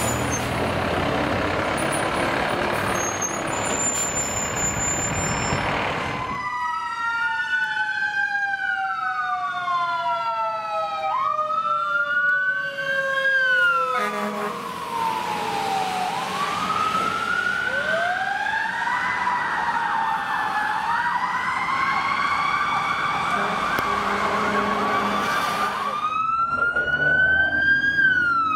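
Fire truck electronic sirens, often two at once, sweeping up and down in a wail with quicker yelp-like cycles and a fast warble in the middle stretch. For the first six seconds there is a dense rush of heavy vehicle noise instead.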